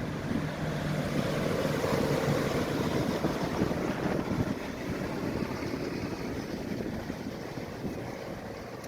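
Wind buffeting the microphone over surf, with a low rumble that is loudest about two seconds in and slowly fades away.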